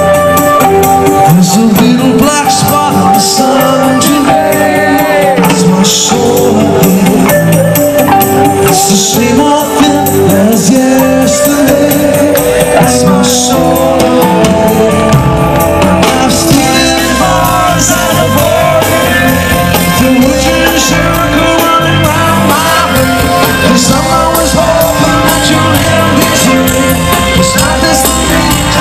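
Loud live rock band playing: electric bass, drum kit with cymbals and electric guitar, with a male voice singing.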